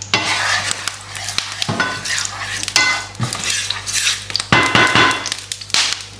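Fenugreek seeds tipped into hot oil in a nonstick frying pan and stirred with a wooden spatula: a light sizzle under repeated taps and scrapes of the spatula against the pan.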